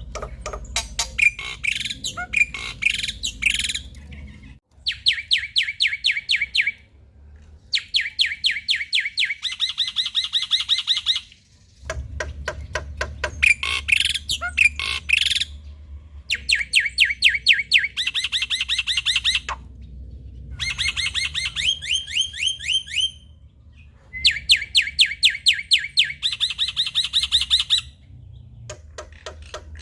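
Male black-winged myna (jalak putih) singing: loud phrases of rapid, repeated chattering notes, each phrase one to three seconds long, with short pauses between.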